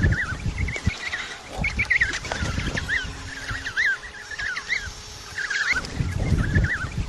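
A penguin colony calling: many short, overlapping chirping calls from several birds at once, over a low rumble that swells near the start and again about six seconds in.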